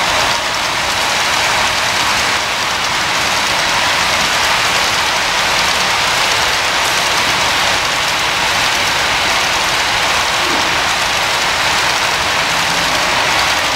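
HO-scale model freight train rolling past on its track: a steady, dense rattle of many small wheels and cars on the rails.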